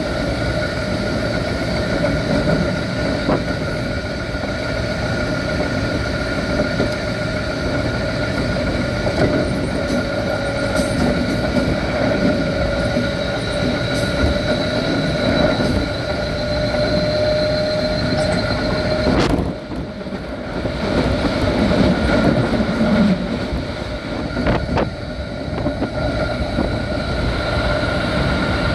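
Keikyu 1500-series chopper-controlled electric train heard from inside the car: wheel-on-rail rumble with steady whining tones from the drive and a few sharp clicks. About two-thirds through the sound briefly drops away, then the train starts to pick up speed.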